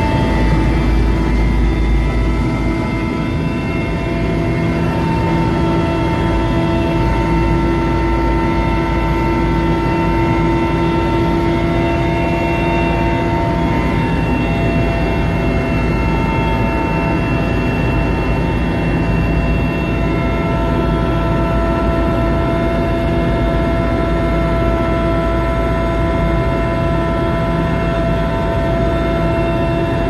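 Loud, steady helicopter cabin noise heard from inside a multi-seat transport helicopter: a deep rotor and engine drone with several steady turbine whines above it, as the helicopter lifts off from its pad and climbs away.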